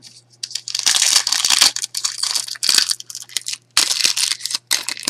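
Foil wrapper of a Pokémon trading card booster pack being torn open and crinkled by hand, with a long dense crackle about a second in and shorter crinkles after it.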